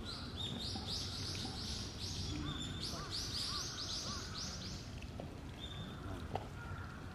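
A small bird calling with a run of quick high chirps that speeds up and stops about four and a half seconds in, over a low steady background rumble.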